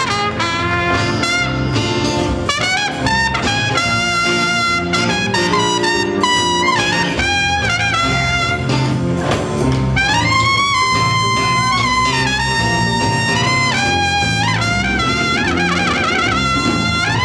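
Trumpet playing a jazz solo over a small band with bass guitar and drums, moving through quick phrases with a few long held notes about ten seconds in.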